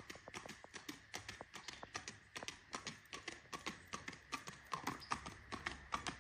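Faint, quick, even hoofbeats of a Tennessee Walking Horse in motion, several footfalls a second.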